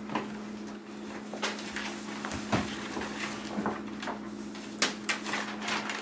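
Sheets of paper rustling and being handled at a table, with scattered small knocks, over a faint steady electrical hum.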